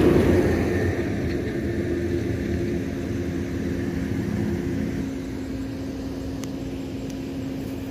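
A steady low mechanical hum with a couple of held tones, of the kind an engine running nearby makes. Over it a cloth sack rustles as it is shaken out over grass, loudest in the first second.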